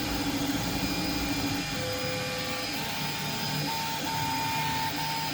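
Kingroon KLP1 CoreXY 3D printer printing: its stepper motors whine in steady tones that shift pitch and break off briefly as the print head changes moves, over a steady hiss of fan noise.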